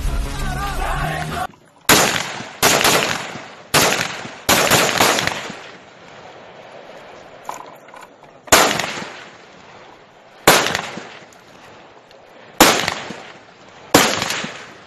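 Background music cuts off about a second and a half in. Then come about eight single rifle shots, irregularly spaced one to two seconds apart, each a sharp crack followed by a long echoing tail.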